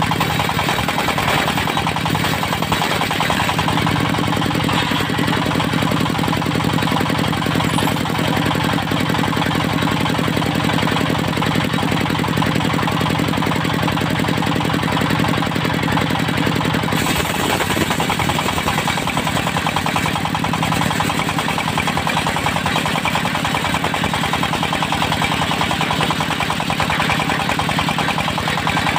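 Diesel engine driving a portable circular-saw sawmill, running steadily while squaring teak logs; its tone shifts about seventeen seconds in.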